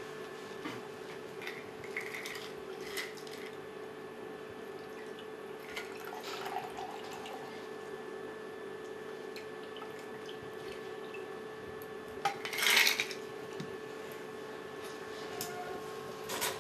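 Cocktail poured from a metal cocktail shaker into a glass: light clinks of metal and glass over a steady background hum, with one louder clatter about three quarters of the way through.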